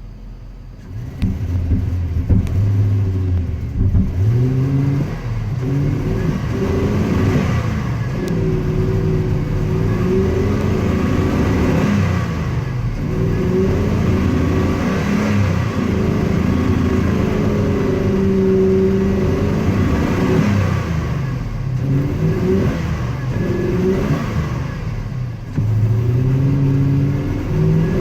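1999 Chevy Z71's engine under hard throttle, its revs climbing and dropping back again and again, missing and coughing as it pulls.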